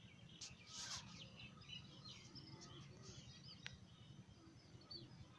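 Near silence: faint bird chirps over a low steady hum, with a short rustle about half a second in and a small click about two-thirds of the way through.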